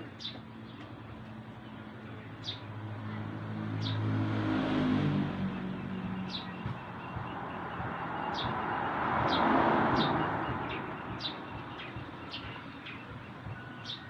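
A bird chirps again and again in short high notes while motor vehicles pass: one with an engine hum that swells and fades about four to six seconds in, and another that swells to a peak near ten seconds.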